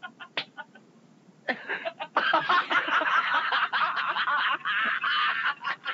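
Several people laughing in the studio: a few short sounds, then laughter starting about a second and a half in and swelling into a steady, choppy outburst.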